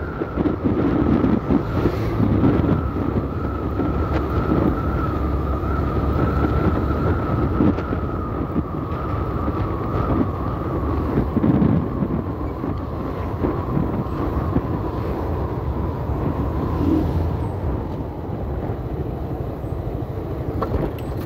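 Vento Lithium 190cc single-cylinder motorcycle running at road speed, with wind buffeting the microphone. A steady whine rides over the engine and drifts slowly lower, fading out near the end.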